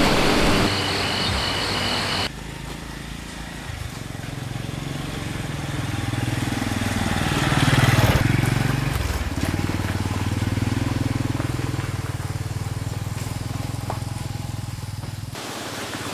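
A motor vehicle's engine passing by: it grows louder to a peak about halfway through while its pitch bends, then fades away.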